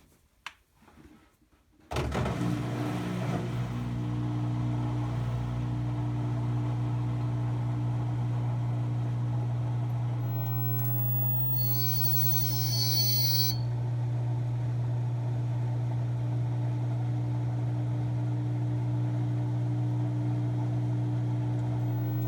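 LG front-loading washer on its spin cycle: a steady electrical hum starts suddenly about two seconds in and holds, with a high-pitched screech for about a second and a half near the middle. The drum fails to spin; the hum and screech are the washer's fault sound, with a cause not yet found.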